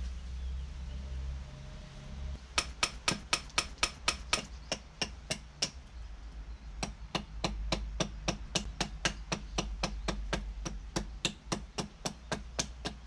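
Knife blade chopping into the side of an upright wooden branch to cut a notch: rapid, evenly spaced strikes about five a second, in two runs with a short pause between, over a steady low hum.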